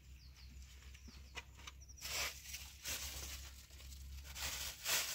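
Thin plastic bag crinkling and rustling in repeated bursts from about two seconds in as it is handled and opened, after a couple of light clicks.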